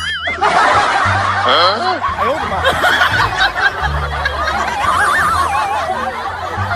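Laughter of several voices snickering and chuckling at once, in overlapping wavering giggles, with low bass beats of music underneath.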